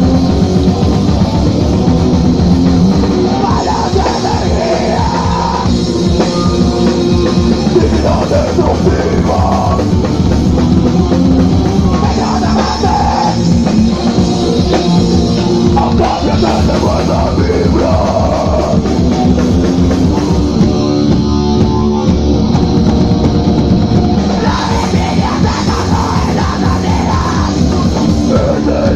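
Live noisecore band playing at full volume: distorted electric guitar and fast, dense drumming, with vocals at times.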